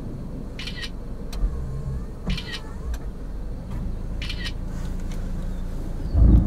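Three short, high-pitched animal calls, about two seconds apart, over a steady low rumble. A loud roll of thunder breaks in near the end.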